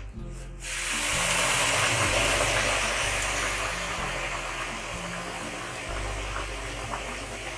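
Water poured from a steel pot into a hot wok of oil-fried polao rice, splashing and hissing as it hits the hot pan. It starts about half a second in and slowly eases off.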